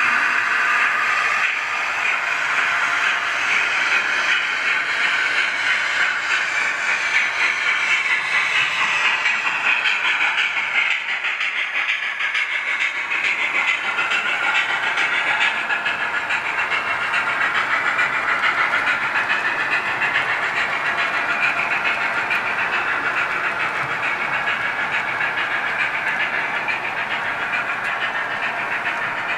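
H0-scale model train running along the track: a model diesel locomotive hauling passenger coaches past, its electric motor and gears whining steadily with the wheels rolling on the rails.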